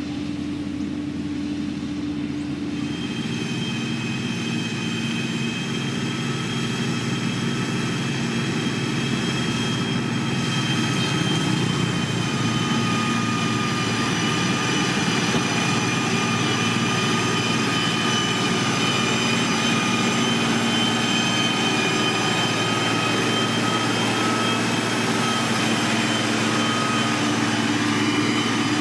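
Heavy diesel engine of road-building machinery running steadily, with a high-pitched whine over it from about three seconds in, growing a little louder over the first half.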